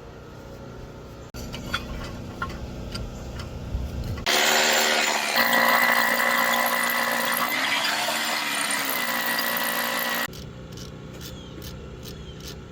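A power tool runs for about six seconds in the middle with a loud, steady high whine over a rush of noise. Before it come low rumbling and scattered clicks, and after it an even run of clicks.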